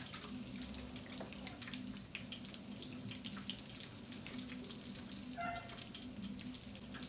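Wet leafy greens being lifted from a steel bowl and dropped into a saucepan of hot water, with faint watery splashes and crackling over a steady low hum. A brief pitched sound about five and a half seconds in.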